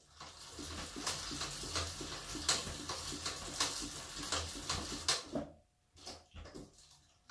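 Bicycle chain and rear wheel being turned to test the drivetrain: a dense run of metallic clicking and rattling for about five seconds, then a few separate clicks. The chain runs freely without catching anywhere.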